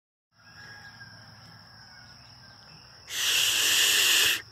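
Steady high insect trill over a low background hum. About three seconds in comes a loud, long 'shh' shush close to the microphone, lasting just over a second and cutting off sharply.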